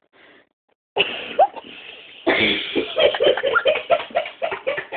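A sudden breathy vocal burst about a second in, then a louder burst a little after two seconds that breaks into rapid, pulsing laughter from a small group of young people.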